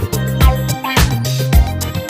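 Background music with a steady dance beat and bass line.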